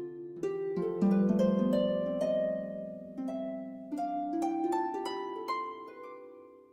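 Background music: a run of plucked notes, each ringing out and fading, stepping upward in pitch over a low sustained note.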